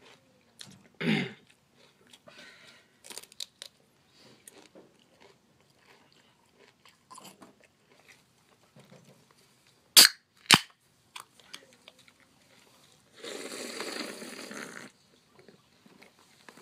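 Loud eating: crunching and chewing of a snack, with a short burst about a second in, two sharp cracks about ten seconds in, and a longer noisy crunch around thirteen to fifteen seconds.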